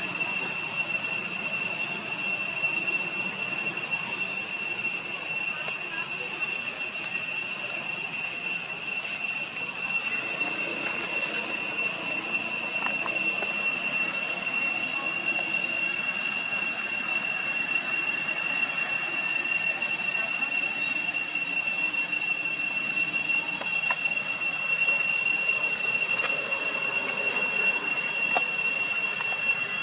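Cicadas droning in an unbroken, high-pitched whine, a little louder from about halfway through.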